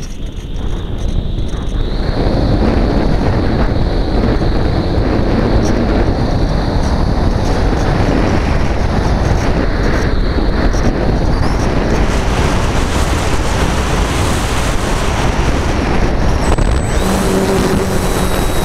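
Wind rushing over the onboard camera's microphone on a Phoenix 2000 electric RC glider in flight, building over the first couple of seconds and then holding steady. Near the end the glider's electric motor starts, adding a steady whine as the folding propeller spins up.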